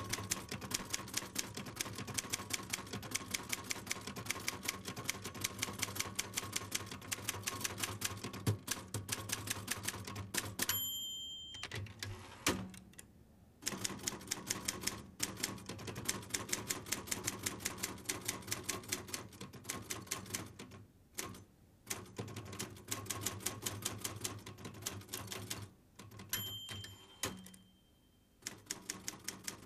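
Typewriter keys clattering in fast runs of strikes, with short pauses between runs. The typewriter's end-of-line bell rings twice, about a third of the way in and again near the end.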